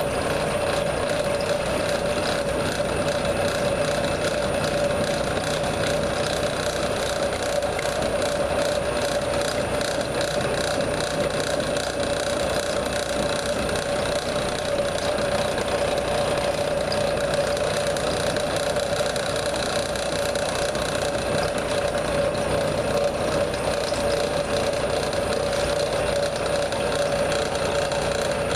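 CNC milling machine cutting a helical gear with a hob cutter: a steady machining whine over a continuous fine rattle of the cutting.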